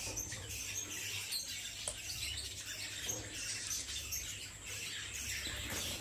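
A flock of caged lovebirds and budgerigars chirping and chattering: many short, high chirps overlapping without a break.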